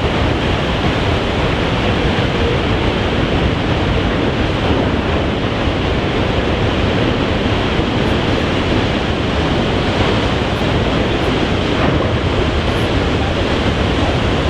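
Big-wave surf breaking and rushing, a steady loud roar mixed with wind buffeting the microphone.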